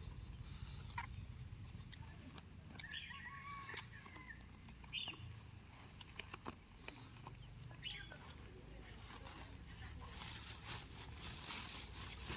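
Birds calling: a few short chirping calls a couple of seconds apart. From about nine seconds in, a louder rustling and scraping takes over.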